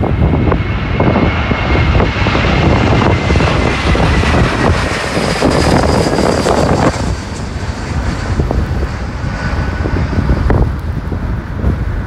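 Airbus A321 jet engines whining as the airliner passes low overhead on final approach, the whine sinking slightly in pitch, loudest about halfway and dropping off about seven seconds in as it moves away. Strong gusty wind buffets the microphone throughout.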